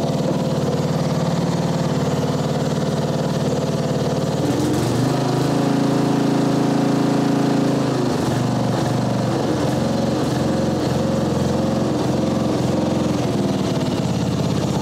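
A riding mower's 1997 Briggs & Stratton 12.5 hp flathead engine running steadily. About four and a half seconds in it speeds up and holds a higher note, then for several seconds its pitch swings up and down repeatedly before it settles again.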